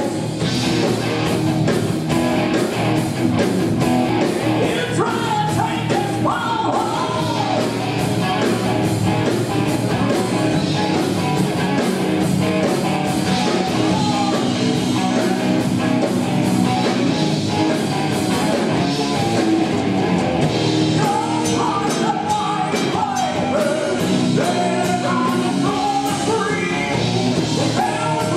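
A rock band playing live: electric guitars, bass guitar and a drum kit, with a male singer's voice coming in and out over them.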